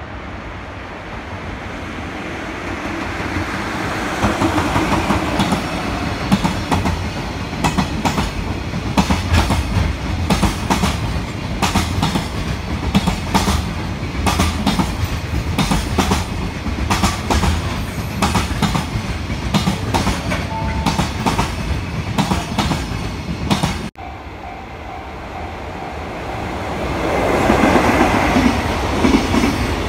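Container freight train hauled by an EF66 electric locomotive passing close by, its wagon wheels clicking over the rail joints in a quick, steady clickety-clack. About 24 s in the sound breaks off and another passing of the train begins, building to its loudest near the end as the locomotive goes by.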